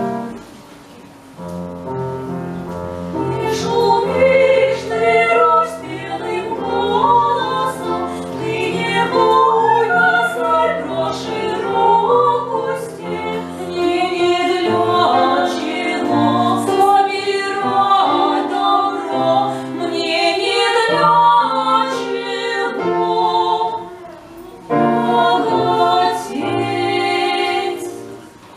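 Classically trained voices singing a slow Russian romance in operatic style, over instrumental accompaniment. The music dips briefly near the end, then the singing resumes.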